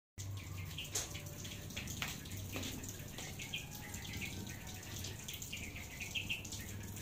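Rain falling with water dripping off the roof, and a few sharper drips now and then.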